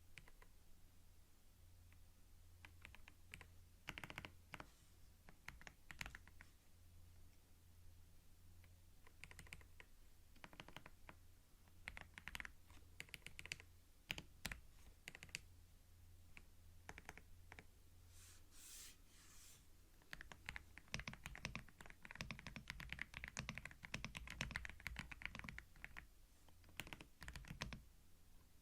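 Computer keyboard typing, close-miked and recorded binaurally: scattered bursts of keystrokes, then a steady run of fast typing from about two-thirds of the way in. A short soft hiss comes just before the fast run.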